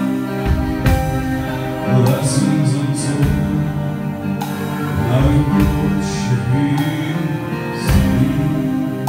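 Live band music: acoustic guitar and a man singing, carried by low drum hits.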